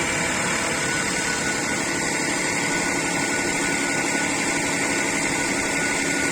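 Engine running steadily with a thin, high whistle held at one pitch over its hum; the whistle is the fault being asked about.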